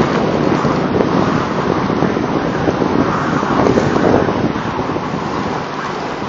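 Pickup truck pulling a homemade A-drag plow through deep snow: a loud, steady rushing rumble of the truck running under load and snow being pushed and scraped aside, with wind buffeting the microphone.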